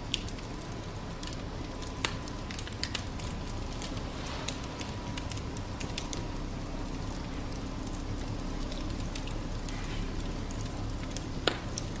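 Firewood logs burning over glowing oak charcoal in an open fire pit: a steady crackle with scattered sharp pops, the loudest about two seconds in and near the end.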